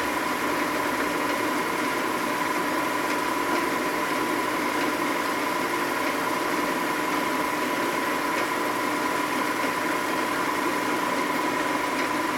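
Milling machine running steadily with its cutter taking a heavy cut across a Harley-Davidson Sportster cylinder head's gasket surface, throwing off a lot of metal chips. The sound is an even hum with a steady high tone.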